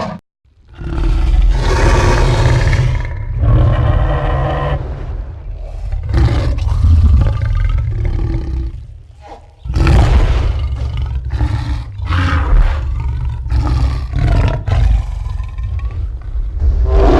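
Allosaurus sound effects: a series of deep, rumbling dinosaur roars and growls, with a short pause a little past halfway before another run of roars.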